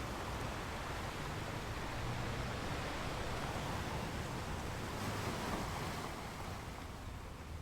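Sea waves washing onto a beach: a steady surf wash that swells and eases gently.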